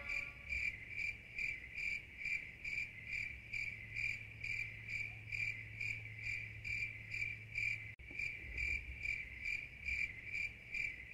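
A cricket chirping in an even rhythm, about three short high chirps a second, over a faint steady low hum; it stops abruptly at the end.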